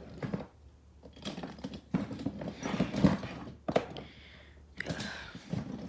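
Die-cast toy monster trucks clattering and knocking against one another, an irregular run of clicks and clacks as a hand rummages through the pile.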